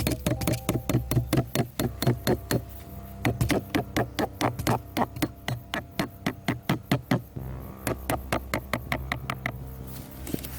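Rapid knocking, about four strikes a second for some seven seconds, then a few scattered knocks, typical of wood being chopped or hammered while a trap is built.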